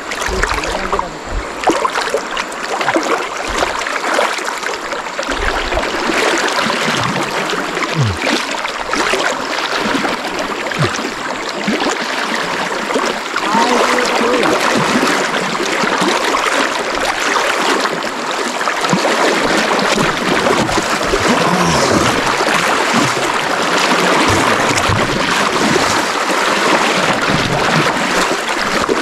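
Fast river current rushing and splashing close to the microphone: a steady rush of water broken by many small splashes, as people wade waist-deep through it.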